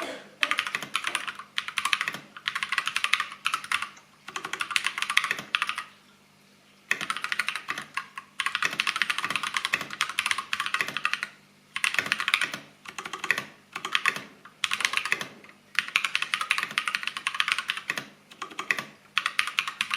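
Fast typing on a custom GMMK TKL mechanical keyboard fitted with Holy Panda tactile switches and PBT keycaps: rapid key clacks in runs of one to two seconds, with brief pauses between them and the longest lull about six seconds in.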